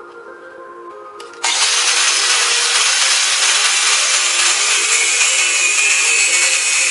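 Angle grinder with a thin metal cut-off disc running against steel, starting suddenly about a second and a half in and then running steadily at full speed as a loud, even hiss.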